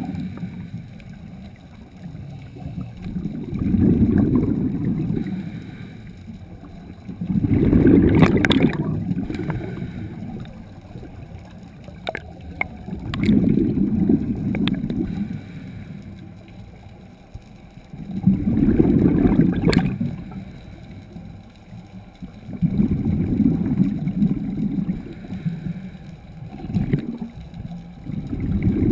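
Scuba diver breathing through a regulator underwater: each exhalation is a burst of rushing, gurgling exhaust bubbles lasting about two seconds, repeating roughly every five seconds with quieter inhalations between.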